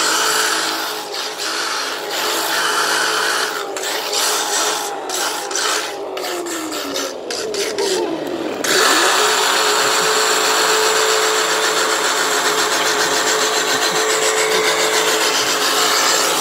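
Maverick Strada RC car, converted to rear-wheel drive, doing a burnout: an electric motor whines and the rear tyres spin and scrub on the pavement. About six seconds in the motor's pitch falls away. Just before the nine-second mark it suddenly goes back to full throttle, with a steady whine and louder tyre noise that hold to the end.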